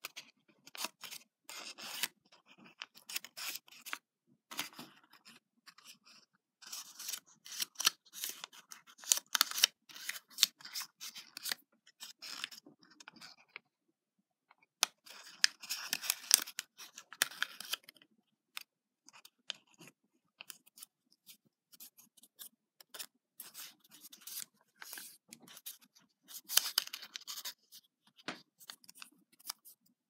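Small sheet of origami paper rustling and crackling as it is folded and pinched by hand. The sound comes in irregular clusters of small crackles, with a brief lull about halfway.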